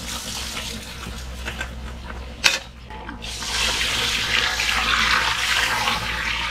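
Water pouring in a steady stream, starting about three seconds in, after one sharp knock.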